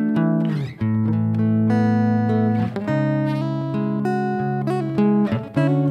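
Acoustic-electric guitar played solo, chords ringing out and changing every second or so, with brief dips in level between them.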